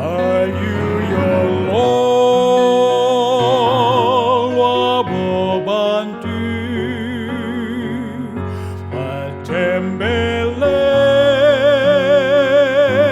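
Gospel choral music: several voices hold long notes with wide vibrato over steady low bass notes, swelling louder in the last few seconds.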